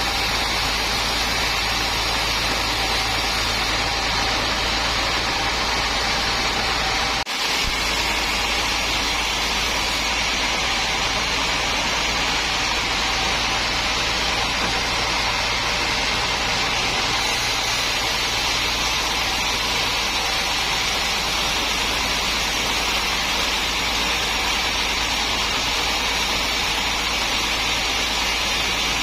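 Sawmill machinery running steadily: a constant, even mechanical noise, with a brief dropout about seven seconds in.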